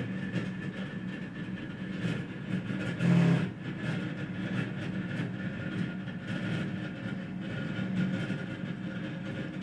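Frigidaire refrigerator running with a loud, steady mechanical hum and drone, an abnormally loud noise its owner is trying to trace. A short louder swell about three seconds in.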